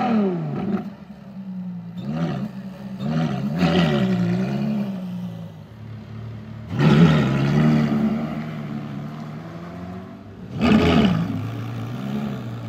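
Ferrari sports car's engine revving as it drives along, in several surges that climb and fall in pitch, the loudest about seven and eleven seconds in.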